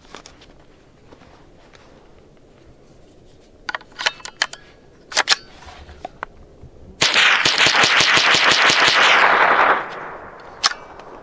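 A few sharp clicks as the Rock Island TM22 .22 rifle is handled and readied. About seven seconds in comes a rapid string of semi-automatic shots with CCI ammunition, lasting nearly three seconds, with the rifle cycling round after round.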